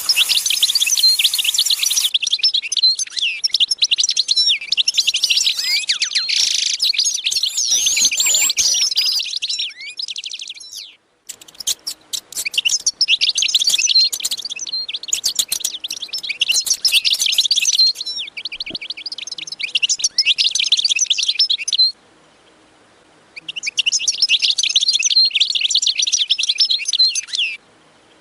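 A dense chorus of many small birds chirping and twittering rapidly, breaking off abruptly a few times and starting again.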